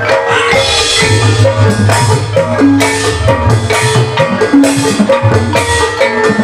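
Javanese gamelan ensemble playing live dance music: bronze pot gongs, hanging gongs and other struck metal instruments ringing out a busy, steady rhythmic pattern.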